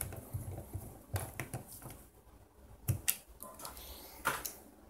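Light clicks and taps of a small precision screwdriver turning out the tiny screws of a phone's plastic inner frame, with a few sharper clicks about three seconds in and again near the end.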